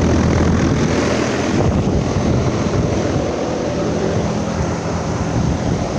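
Carrier Weathermaker Tech 2000 air-conditioner condenser running just after starting up, on its original fan motor: a loud, steady rush of air from the condenser fan over a low, even hum.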